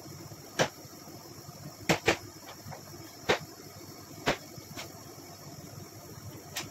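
Scattered sharp clicks and taps of small plastic cups being knocked while cream is piped into them from a piping bag, about seven in all, including a quick pair about two seconds in, over a steady hiss.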